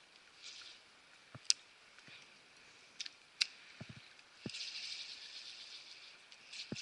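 Spinning fishing reel being cranked in short bursts of fine, fast ticking, with two sharp clicks and a few soft low taps.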